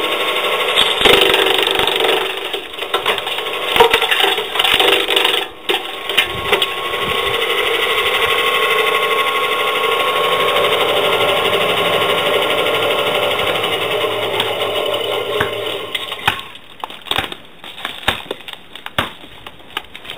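Belt-driven branch chipper running, chewing a fed branch into chips with irregular cracking in the first few seconds, then running steadily. About 16 seconds in the machine's steady running sound drops away, leaving scattered clicks.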